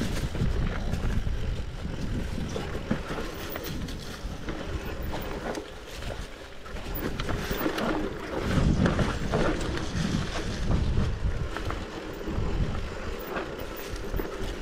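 Mountain bike rolling down a rough dirt and rock trail: tyres crunching over the ground with frequent knocks and rattles from the bike, under wind rushing over the camera microphone. It grows louder about halfway through.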